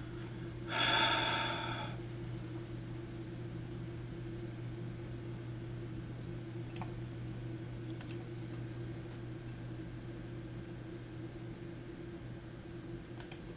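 Steady low electrical hum, with a short breath about a second in. Sharp computer mouse clicks come once a little past the middle, once a second later, and as a quick pair near the end.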